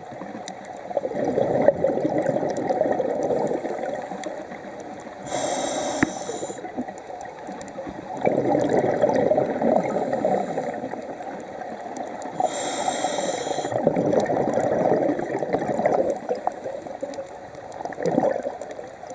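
Scuba regulator breathing underwater: long bubbling exhalations, broken twice (about five and twelve seconds in) by a short hissing inhalation.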